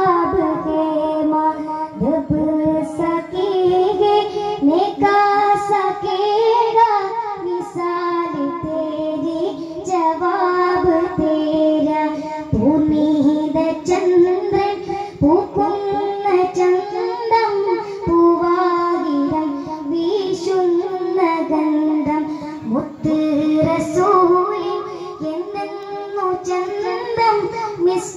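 A group of boys singing a devotional melody together, with daf frame drums struck in rhythm underneath, as in a Kerala daff muttu performance.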